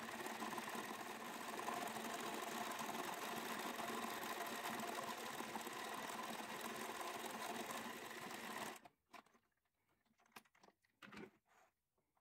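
Domestic electric sewing machine running steadily as it stitches down a pinned sock, stopping abruptly about three-quarters of the way through; a few faint clicks follow.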